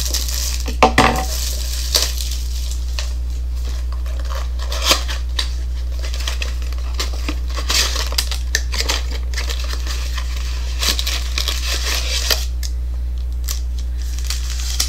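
Cardboard box of trading-card packs being torn open and handled: scraping and crinkling of cardboard and wrapped packs, with a sharper knock about a second in, over a steady low hum.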